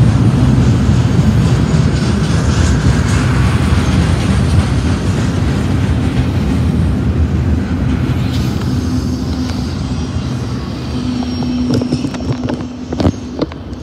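Double-stack intermodal freight train's well cars rolling past close by: a steady rumble of steel wheels on rail that slowly fades. Near the end come a few sharp knocks and a brief steady tone.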